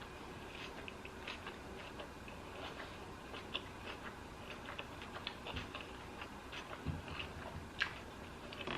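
Close-miked chewing of soft food, heard as many small, irregular wet mouth clicks and lip smacks, with one sharper click near the end.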